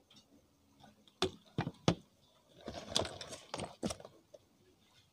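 Plastic cosmetic tubes and packaging handled by hand: three sharp clicks and taps a little over a second in, then a flurry of rustling and clicking around the three-second mark as items are moved in a makeup case.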